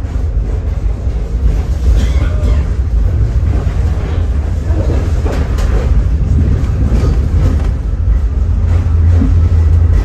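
Tram running along its track: a steady low rumble from the wheels on the rails, with a few short clicks and brief squeals about two seconds in and again midway.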